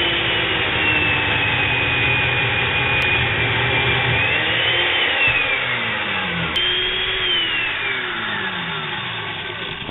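Makita 7104L chain mortiser's electric motor and cutting chain running loud with a high whine. Twice the pitch sags, as the chain is plunged into the timber and the motor is loaded. It picks up again in between.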